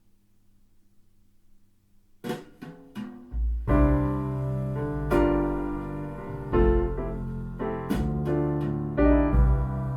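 Piano music played back through Fyne Audio F700 hi-fi loudspeakers. It begins after about two seconds of near silence with a few single notes, then fills out into sustained chords over deep bass.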